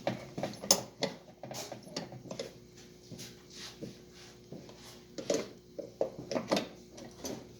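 Irregular clicks, taps and knocks of things being handled, over a faint steady hum.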